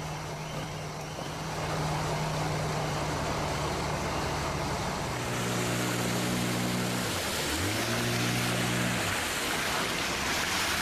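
Boat's outboard motor running over the hiss of water and wind. About seven seconds in, the engine note drops sharply and climbs back up, as the throttle is eased off and opened again.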